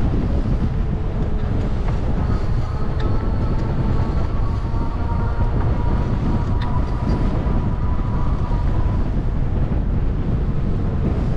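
Wind rushing over the microphone of a moving bicycle, a steady low rumble. A faint high whine runs through it from about two seconds in until near the end, with a few light clicks.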